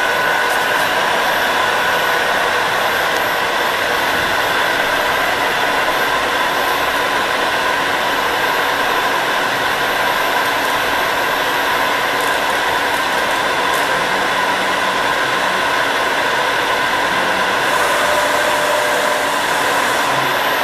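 Deckel FP3NC NC tool milling machine running under power: a steady whirring hiss with a couple of steady whining tones, unchanging throughout.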